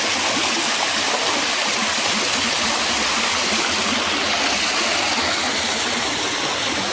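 Waterfall: water falling and rushing, a dense, steady rush with no break.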